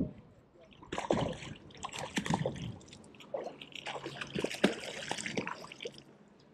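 Water splashing and trickling at the shoreline in two irregular, crackly spells, with small clicks and drips mixed in.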